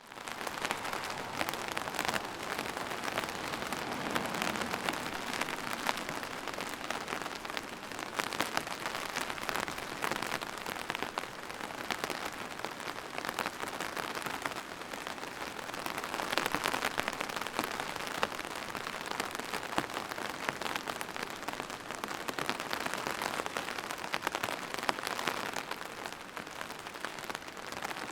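Steady rain falling and pattering on a surface, a dense even hiss of countless drops that swells and eases slightly now and then.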